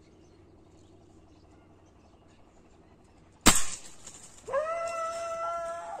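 A single sharp crack of a scoped air rifle firing about three and a half seconds in. About a second later an animal begins a long, steady, high whine with overtones.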